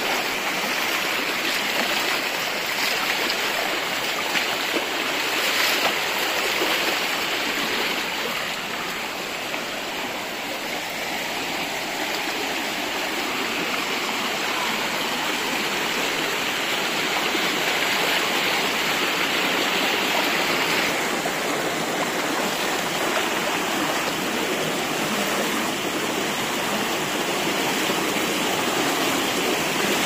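Shallow stream rushing and splashing over rocks, a steady water noise.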